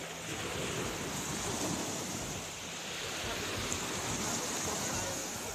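Sea waves washing onto a beach, a continuous rush that swells and eases over a few seconds.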